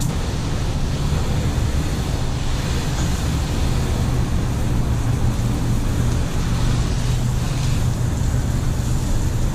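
Steady spray of rinse water hitting a car's painted panels, washing the shampoo off, over a steady low machine hum.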